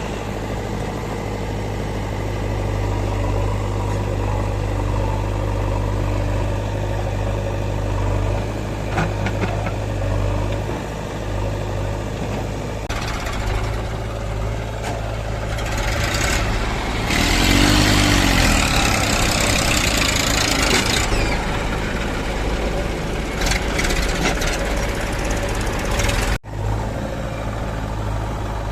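Heavy diesel machinery running steadily at a low, even pitch. A loud rushing noise rises past the middle, lasts about five seconds, then falls away, and the sound cuts out for a moment near the end.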